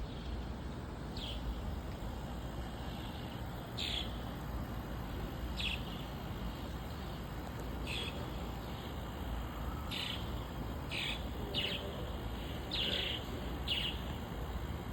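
Swallows calling: about ten short, high calls, each dropping quickly in pitch, one every second or two and coming closer together in the second half.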